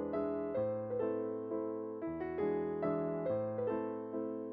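Background music: a gentle solo piano melody, notes struck about twice a second, each one fading.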